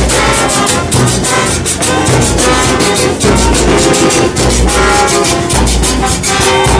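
Murga band music: brass instruments playing over drums with a steady beat.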